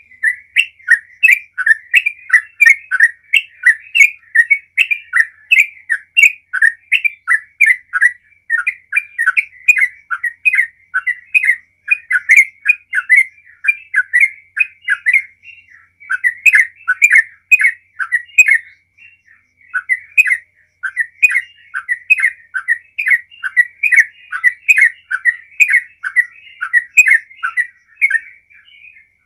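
Yellow-vented bulbul singing a long, fast run of short repeated notes, several a second, with a few brief pauses. This is the continuous 'gacor ropel' song that keepers use to prompt other bulbuls to sing.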